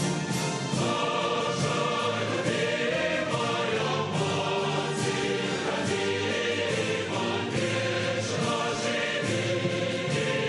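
Large choir singing a slow, sustained choral piece.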